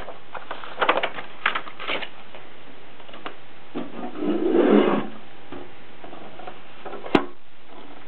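Paper manuals and a plastic document sleeve handled on a portable typewriter: rustling and light knocks, a longer rustle about four to five seconds in, and one sharp click a little after seven seconds.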